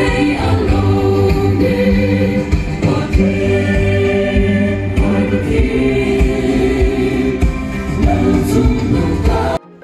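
Choir singing a gospel-style hymn, cutting off abruptly near the end.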